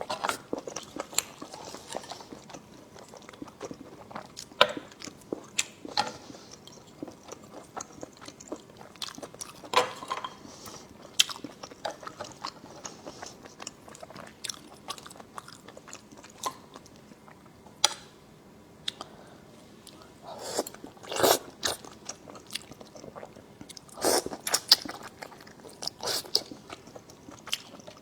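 Close-miked eating: a person biting and chewing food, with many irregular short mouth clicks and smacks. There are louder clusters about two-thirds of the way through and again near the end.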